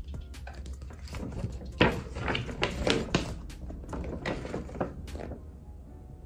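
A folded paper album poster being unfolded and shaken open, rustling and crinkling in irregular crackles, the sharpest about two seconds in.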